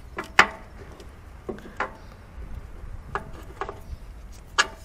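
Hand working an ignition coil and its plastic connector on a Subaru EJ20 boxer engine: scattered sharp clicks and knocks, the loudest about half a second in and another strong one near the end.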